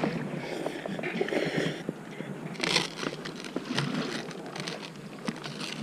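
Rustling and crinkling from a paper instant-noodle cup being handled, with scattered light clicks and a brief louder rustle about halfway through.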